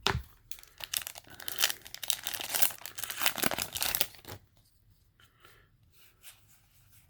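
Yu-Gi-Oh! booster pack wrapper being torn open and crinkled for about four seconds, then faint handling sounds near the end.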